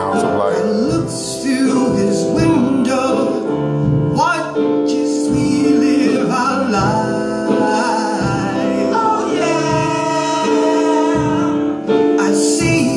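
Gospel group singing with piano accompaniment, voices holding and sliding between long notes over sustained chords.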